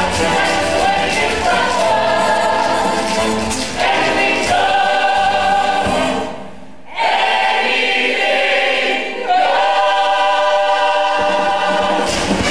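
Musical-theatre cast singing together in chorus, with backing that has bass in it. About six seconds in the sound breaks off briefly. Then the voices hold long notes with little bass under them, and the fuller accompaniment comes back near the end.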